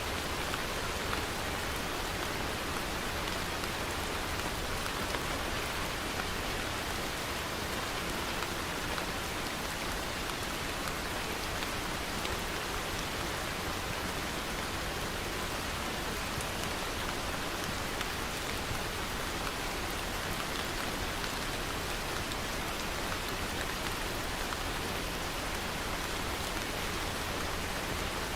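Steady rainfall pattering on a surface, an even continuous hiss of drops without let-up.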